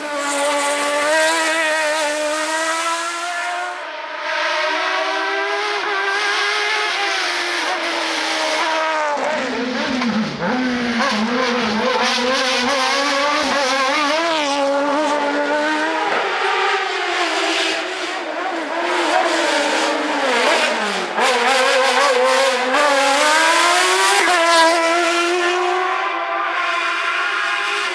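Suzuki-engined Fiat 126 race car's engine revving hard, its pitch climbing and dropping again and again as it accelerates and brakes through the slalom.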